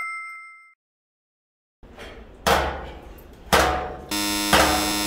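A stainless steel lunch tray banged down three times on the rim of a stainless steel food-waste chute to knock off leftovers: sharp metallic clangs about a second apart. A chime fades out at the start, and a music track comes in just before the last clang.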